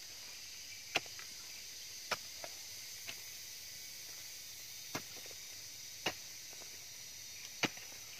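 Hoe blade chopping into damp soil: a sharp thud every second or so, six or seven strikes with a longer gap in the middle. A steady high insect drone runs behind.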